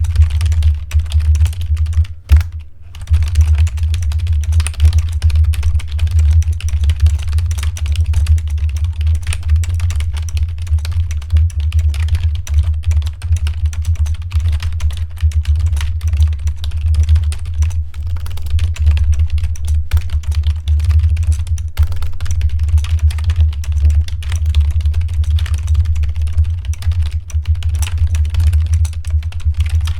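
Logitech K120 membrane keyboard being typed on fast and without let-up, a dense run of key clicks with a short pause a little over two seconds in, over a steady low hum.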